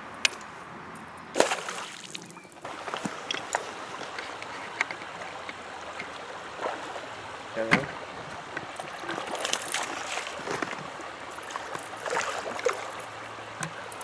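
Shallow river water splashing and sloshing, with several short, sharp splashes: a hooked smallmouth bass thrashing and being swung out of the water.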